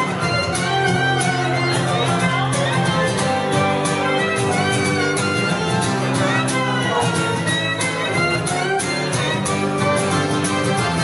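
Harmonica playing held and bent notes over a strummed acoustic guitar, an instrumental passage with no singing.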